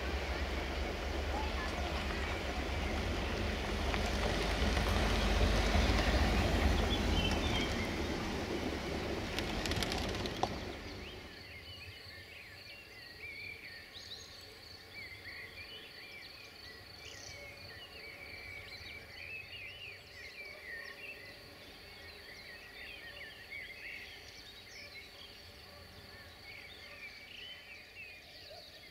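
A loud rushing noise with a heavy low rumble swells for the first ten seconds or so, then stops abruptly. After that, birds chirp and sing over a faint steady high tone.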